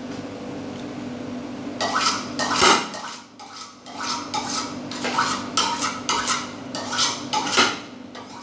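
Pots, pans and metal kitchen utensils clattering and knocking together, a string of sharp clanks starting about two seconds in, loudest near three seconds, over a steady hum.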